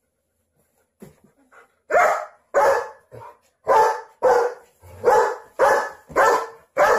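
German Shepherd barking repeatedly, about nine loud barks at roughly two a second, beginning about two seconds in.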